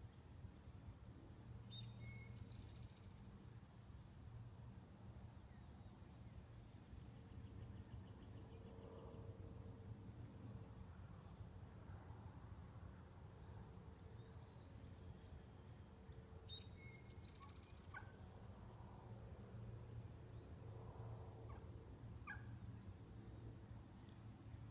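Faint wild turkey hen calls, soft clucks and purrs, over a steady low background rumble, with two short high bird chirps about two and a half and seventeen seconds in.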